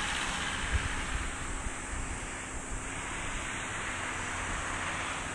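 Distant Boeing 747-400F jet engines on the landing rollout: a steady, even rushing roar with no distinct tones.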